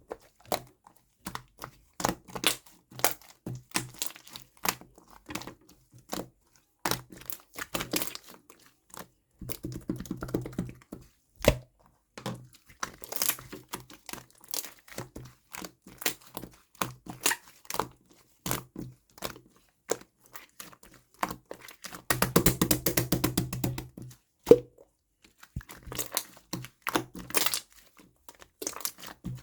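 Close handling sounds: many irregular crinkles, taps and clicks, with a dense run of crackling about two thirds of the way through.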